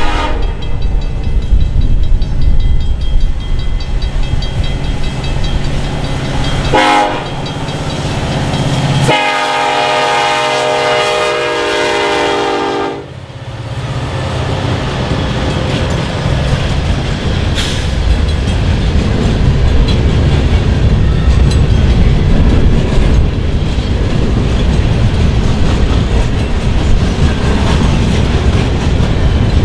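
CN freight train with EMD SD70M-2 diesel locomotives passing, heavy and rumbling, while a locomotive air horn sounds a short blast about seven seconds in and a long chord-like blast from about nine to thirteen seconds. Afterwards the freight cars roll steadily past.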